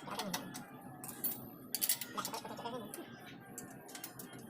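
Metal hand tools and engine parts clicking and clinking as a motorcycle engine is worked on, with a few sharper knocks about 1 and 2 seconds in.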